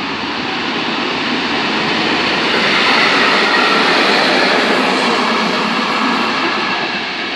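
Freight train of tank wagons running through the station, its wheels rolling on the rails in a loud, steady noise that swells to its loudest midway and then eases.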